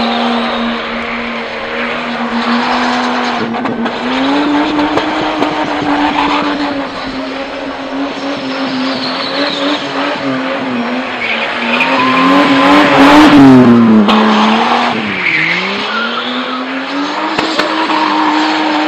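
BMW E30 sedan doing donuts: the engine is held at high revs while the rear tyres spin and squeal. Near the end the revs dip sharply and pick up again twice.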